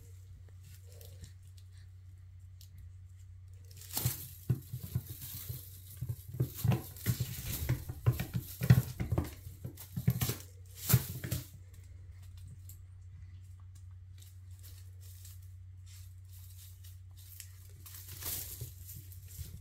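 A Bengal kitten batting at a teaser wand's crinkly foil streamers on a granite countertop: a busy run of rustling, crinkling and scratching from about four seconds in until past the middle, then a lull, and a short burst again near the end. A steady low hum runs underneath.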